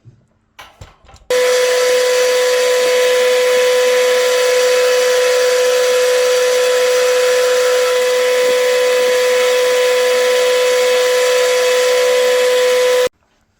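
Metal lathe running and cutting, with a loud, steady, high whine over a hissing noise. It starts abruptly about a second in and cuts off abruptly near the end.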